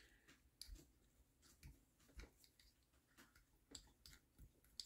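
Near silence with about seven faint, short clicks scattered through it: small metal parts of a nitro model engine and a tool being handled by hand.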